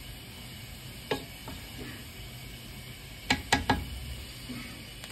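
Rice being stirred in a cooking pot over a low sizzle, with one sharp knock about a second in and three quick knocks a little past three seconds, typical of a spoon striking the pot.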